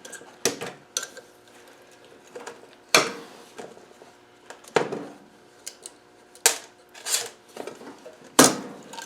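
Irregular metallic clinks and clatter of valve springs, retainers and collets being taken off a Ford Ranger V6 cylinder head with a valve spring compressor and set down on the bench. There are about ten sharp knocks, each ringing briefly.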